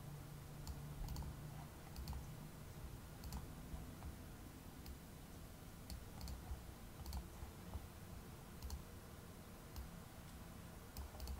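Faint computer mouse button clicks at irregular intervals, about a dozen in all, as anchor points and handles are clicked and dragged, over a low steady room hum.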